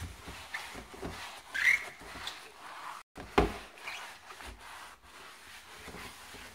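Soapy soft-side sponge rubbed back and forth by a rubber-gloved hand over a wooden kitchen cabinet door, scrubbing off grease. There is a short squeak nearly two seconds in and a sharp knock a little after three seconds.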